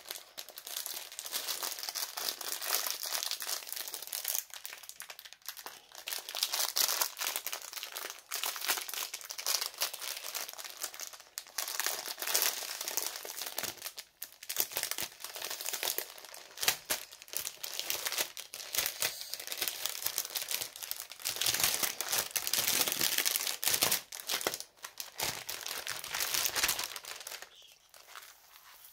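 Plastic packaging crinkling and rustling as a rolled diamond-painting canvas is unwrapped by hand: a dense, irregular run of crackles that dies away near the end.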